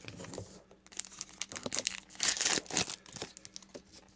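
Crinkling and rustling as trading cards and their wrapper are handled, with a louder burst of crinkling about two seconds in.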